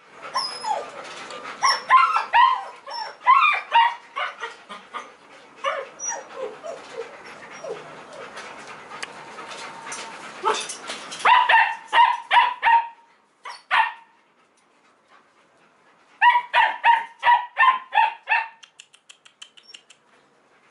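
German Shepherd puppy yelping and yipping in short high-pitched calls, some sliding in pitch, then in quick runs of several yips a second. The calls stop for about two seconds past the middle, then another quick run follows.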